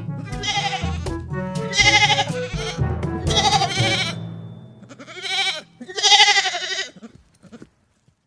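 Five quavering animal bleats over background music with a steady bass line; the music drops out about five seconds in, leaving the last two bleats on their own.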